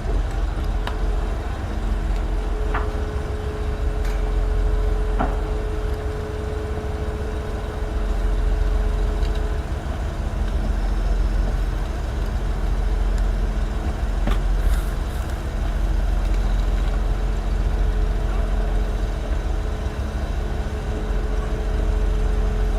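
Large tracked excavator's diesel engine running steadily with a deep drone and a steady hum that comes and goes, with a few sharp metallic clanks, about one, three, five and fourteen seconds in.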